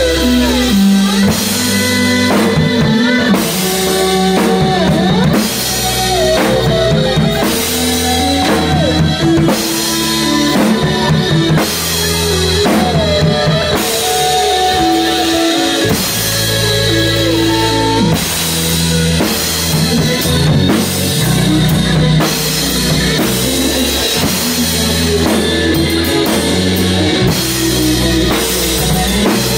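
Live rock band playing an instrumental passage: electric guitar holding and bending notes over a moving bass line and a drum kit keeping a steady beat.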